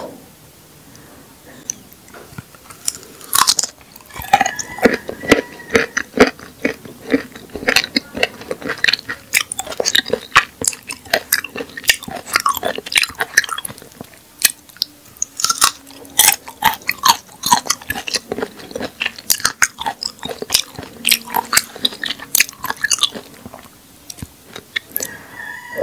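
Close-up biting and chewing of a raw rabbit-ears (prickly pear) cactus pad: after a quiet first three seconds, a dense, steady run of crisp crunches and mouth clicks.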